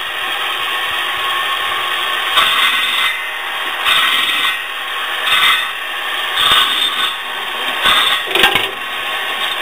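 Circular saw blade of a homemade branch chipper cutting through branches: a steady machine running with a short, louder cut about every second and a half.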